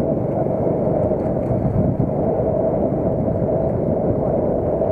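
Alpha moped's small single-cylinder engine running steadily under way, with road noise.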